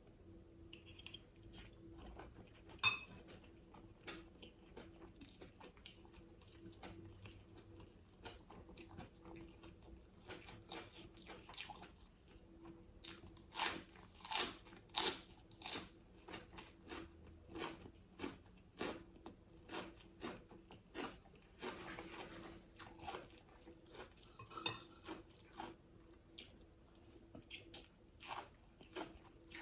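Close-up eating sounds: a person chewing mouthfuls of fish soup and rice, with frequent small clicks and clinks of a spoon against a bowl, the loudest cluster about halfway through.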